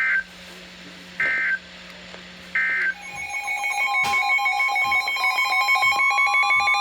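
Emergency Alert System SAME header: three short bursts of screeching digital data about a second apart. From about three seconds in comes a pulsing, warbling alert tone made of several tones, with a steady tone and a slowly rising tone under it. Together they signal the start of a new broadcast alert.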